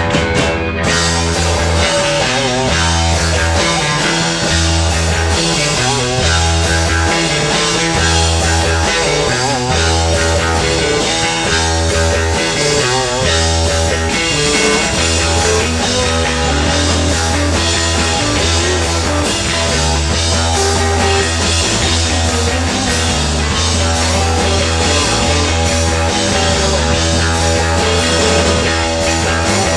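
Rock band playing live, with a steady pulsing bass line under dense guitar and drums.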